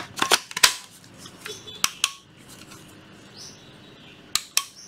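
Sharp plastic clicks and knocks from handling a Hitachi 18V cordless work light, with its head being moved and its switch being pressed. There are several clicks in the first second and a couple around two seconds in. After a quieter stretch, two more come near the end.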